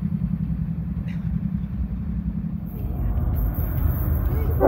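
Freight train rolling along the rails, a steady low rumble of wheels on track. About three seconds in this gives way to the deeper rumble of a diesel-hauled freight train approaching from far off.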